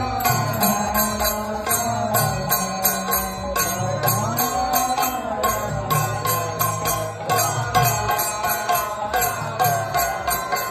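Devotional chant-like music: a voice or melody line gliding in pitch over a low drone, kept to a steady beat of jingling bells.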